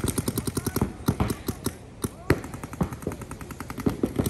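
Paintball markers firing in rapid strings across the field, many shots overlapping in a fast, uneven clatter that thins briefly about halfway, with one louder crack.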